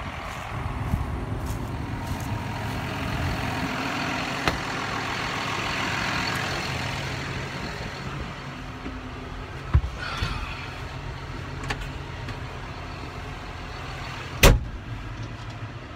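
John Deere tractor's diesel engine running steadily, with a hiss that swells and fades in the first half. A couple of sharp knocks, the loudest near the end.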